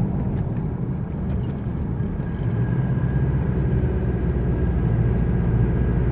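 Chevrolet S10 pickup driving at highway speed, heard from inside the cab: a steady low drone, with a faint high whine from about two seconds in. The driver says this growl is not normal; it grows louder as the revs rise and in right-hand curves.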